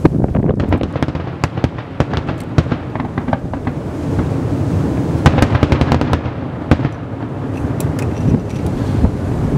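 Fireworks: a rapid run of crackling pops and cracks over a low, rolling rumble, thickest a little past halfway and thinning out toward the end.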